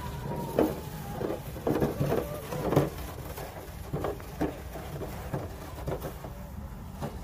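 Footsteps crunching on packed snow, about two steps a second, over a low rumble.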